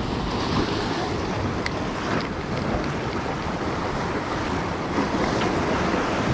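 Waves washing in and wind blowing across the microphone, a steady rush of noise with a couple of faint clicks about two seconds in.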